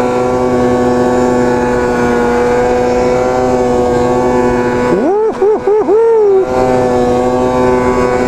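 Snowmobile engine running steadily at high revs while climbing a hill. From about five seconds in, a tone sweeps up and then rises and falls quickly about four times for a second and a half.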